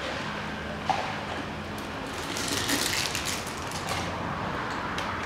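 Motor oil being poured from a plastic bottle into a new spin-on oil filter, a hissing pour for a couple of seconds midway, with a few clicks from handling the bottle and cap.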